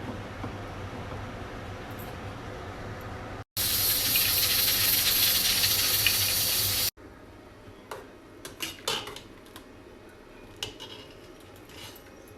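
Kitchen cooking sounds in three cut-together pieces: a steady low hum, then a loud, even hiss for about three and a half seconds, then a few sharp clinks of utensils near the end.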